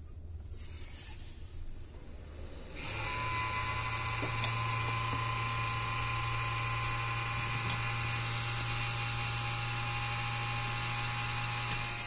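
Desktop PC powering up. About three seconds in, a steady hum and whine starts suddenly: the cooling fans and the newly connected Toshiba P300 2TB hard drive spinning up and running, with a couple of light ticks.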